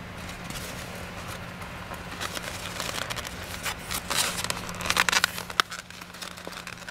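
Packaging rustling and crinkling as a seasoning bag and a covered foam tray of raw chicken are handled. The crackling builds from about two seconds in and is loudest and densest about four to five seconds in.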